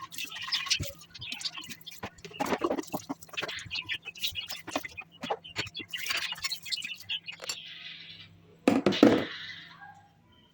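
Small objects being handled: a run of light clinks, taps and rustles, a brief hiss, then a louder short rustle or clatter near the end.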